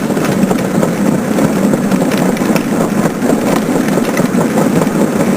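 Kids' ride-on toy car driving, its motor and wheels making a steady rumble.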